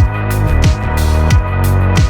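Electronic background music with a deep sustained bass and a steady beat, about three beats every two seconds.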